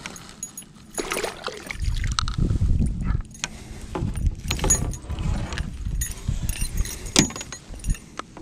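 A largemouth bass being landed and handled aboard a plastic kayak: irregular knocks, rustles and clicks of the fish, rod and line against the hull, with heavier low bumps about two to three seconds in.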